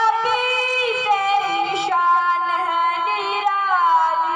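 A single high boy's voice singing a chanted recitation through loudspeakers, holding long notes and gliding slowly from one pitch to the next.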